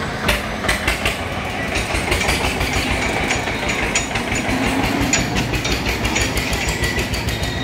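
Diesel farm tractor engine running as it drives slowly past, with its empty steel trailer rattling and knocking over the road.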